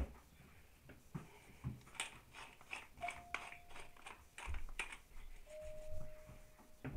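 Pepper mill being twisted by hand, grinding peppercorns in a run of quick dry clicks. A faint steady tone is heard twice.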